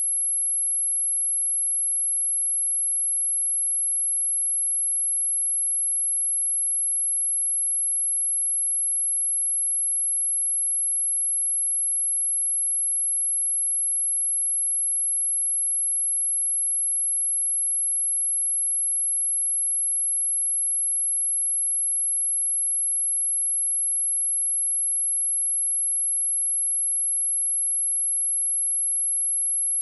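Pure sine-wave test tone at 11076 Hz, a single steady high-pitched whistle held at an even level, played to test a speaker or shake water and dust out of it.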